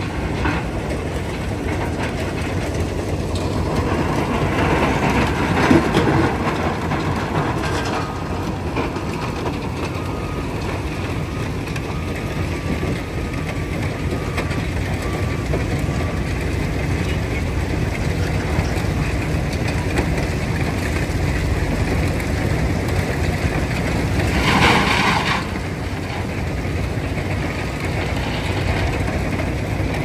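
Mobile jaw and impact rock crushers running and crushing stone into aggregate: a loud, steady mechanical din, with a brief louder burst of noise late on.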